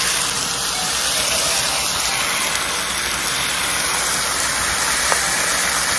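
Chunks of marinated pork sizzling steadily as they sear in hot oil and sugar in a pan, with one light tap about five seconds in.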